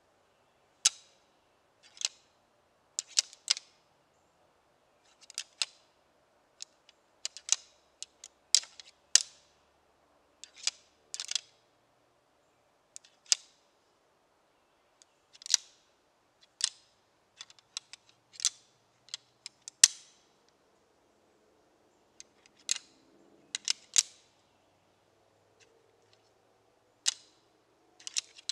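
A pair of deer antlers rattled together, hunter's antler rattling that imitates two bucks sparring. It makes a long run of sharp, irregular clacks, often two or three close together, with pauses of a second or so between bursts.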